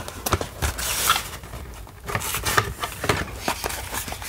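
Cardboard slipcover being slid off a plastic DVD case: irregular scraping and rubbing of card on plastic, with light clicks and taps as the case is handled.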